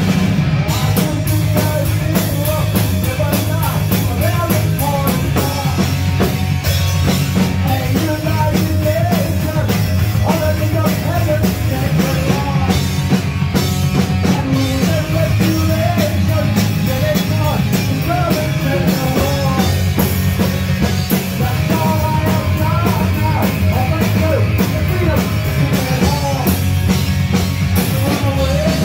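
Live punk rock band playing a song, with a drum kit, bass and electric guitars.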